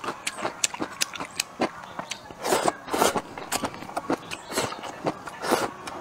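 Close-miked chewing of crisp stir-fried bamboo shoots: a quick, irregular run of short crunches and wet mouth smacks, with a few louder bites about two and a half seconds in and again near the end.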